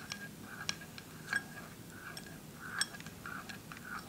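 A spoon stirring clear glue and glitter in a bowl: light, irregular clicks of the spoon against the bowl, roughly every half second, with soft scraping between them.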